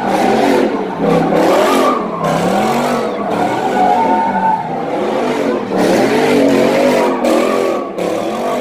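Car engine revving hard, its pitch swinging up and down again and again, with tyres screeching and skidding on pavement during a burnout or donuts.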